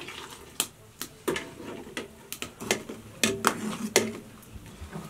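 Metal clinks and knocks of kitchen utensils: an aluminium lid handled over a cooking pot and a metal ladle tapping and scraping inside the pot, about eight sharp clinks at irregular intervals.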